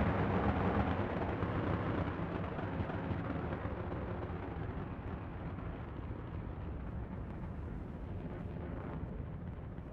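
Falcon 9 rocket's first stage, its nine Merlin engines at full thrust shortly after liftoff, as a deep, steady rumbling rush that slowly fades and loses its top end as the rocket climbs away.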